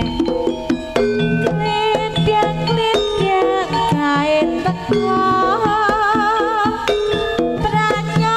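Javanese gamelan music accompanying a jaranan horse dance: kendang hand-drum strokes under ringing metallophone tones, with a melody line that wavers with vibrato in the second half.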